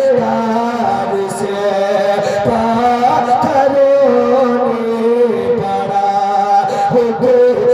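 A man singing a naat, a devotional poem, solo into a microphone, in long held notes that glide up and down.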